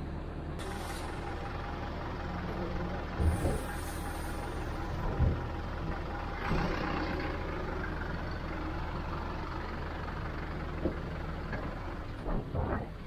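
Vehicle engine running steadily, with a handful of short thumps and clunks spread through it.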